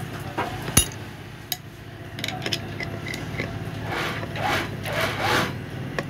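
Screwdriver tightening the set screw on a sewing machine's rotary hook: a sharp metallic click about a second in, then a few rasping scrapes of the blade turning in the screw head about four to five and a half seconds in.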